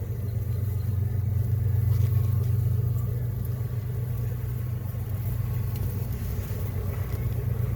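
Steady low hum of a small honey bee colony in an opened hive, an even drone that holds at one level without pauses.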